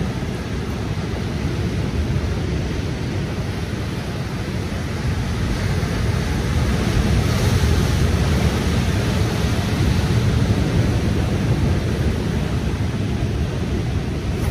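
Wind buffeting the microphone over the steady wash of ocean surf breaking on rocks, swelling a little about halfway through.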